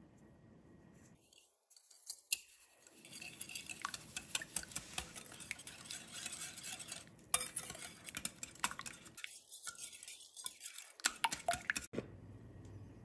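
Wire balloon whisk beating eggs and sugar in a glass bowl: rapid clicking of the metal wires against the glass, starting about two seconds in and stopping shortly before the end.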